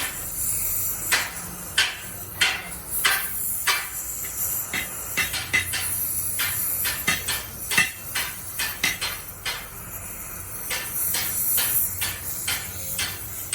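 Irregular sharp knocks and clanks, roughly two a second, over a steady high hiss.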